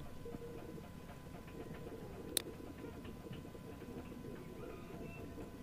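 A single sharp computer mouse click about two and a half seconds in, over a faint steady background hiss and hum with a few softer ticks.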